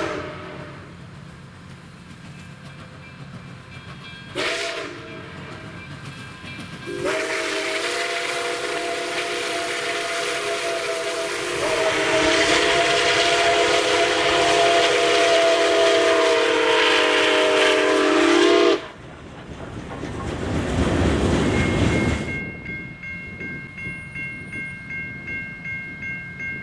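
Nickel Plate Road 765's chime steam whistle sounds several notes together, first a short blast and then a long blast of about twelve seconds that grows louder partway through. It cuts off into a rushing noise, followed by a fainter steady high hum that pulses about twice a second.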